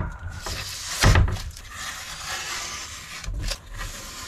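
Blue painter's masking tape being peeled off a wooden panel, a rustling, tearing hiss, with one thump on the wood about a second in.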